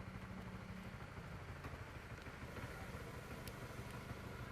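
A motor vehicle engine running steadily, a low even drone with faint road noise over it.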